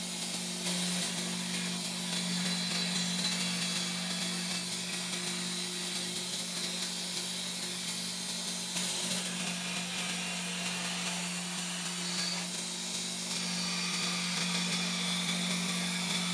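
Belt grinder running with a steady motor hum while a steel knife blank is ground against its abrasive belt, giving a hissing grind that shifts a few times as the blade is pressed on and moved along the belt.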